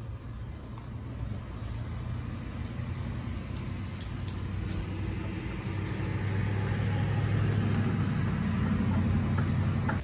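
A low, steady motor hum that grows louder over the second half and cuts off at the end.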